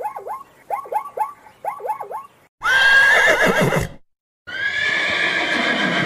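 Zebra barking calls, short falling yelps in quick groups of three, then two long loud whinnies. The first whinny wavers high and then drops away.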